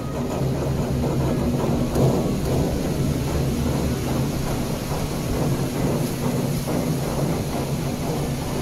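Muddy floodwater rushing across a street in a steady, dense roar, with a low steady hum underneath.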